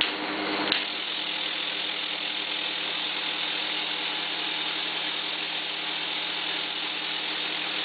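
Graphic Wizard paper creasing and perforating machine running steadily while it perforates sheets. There is a single click about a second in, then a steady mechanical whir.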